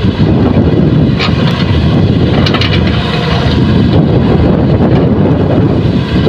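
Diesel engine of heavy earthmoving machinery running with a loud, steady low rumble, with a few brief clanks about a second in and around two and a half seconds in.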